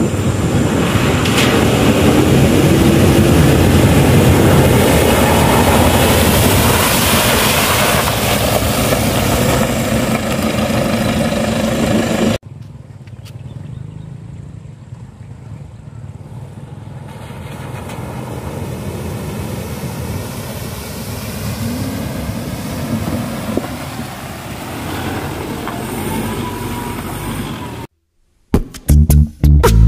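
An off-road SUV's engine running as it drives through a shallow, rocky river crossing, loud and steady for about twelve seconds. After a sudden cut, a much quieter steady background, then a moment of silence and guitar rock music with a beat starting near the end.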